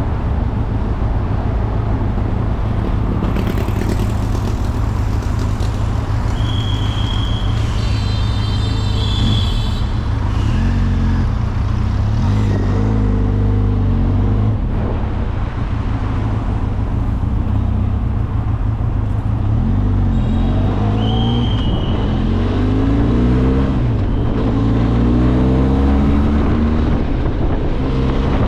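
Benelli TRK 502X motorcycle's parallel-twin engine under way. The engine pitch rises repeatedly as it accelerates through the gears, mostly in the second half.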